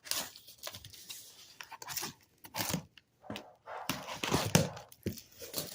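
Irregular rustling and scraping of packing paper and a cardboard shipping box being handled and pulled open.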